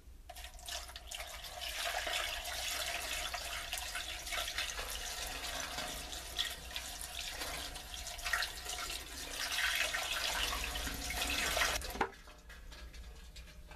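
Diluted bleach solution pouring steadily from a plastic bucket into a funnel on the well cap and running down into the well; the pour cuts off suddenly about twelve seconds in as the bucket empties.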